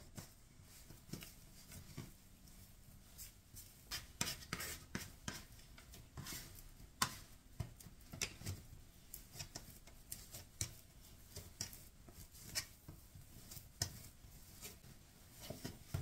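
Hands kneading soft dough on a wooden worktop: faint pressing and rubbing with scattered light taps, one sharper knock about seven seconds in, and a plastic dough scraper scraping dough off the hands and board.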